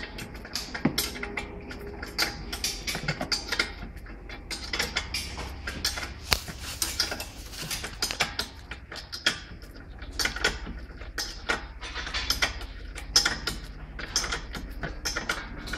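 Metal spanner tightening the nut on the ball joint bolt of an Audi A4's front suspension: a steady run of quick, irregular metallic clicks and scrapes.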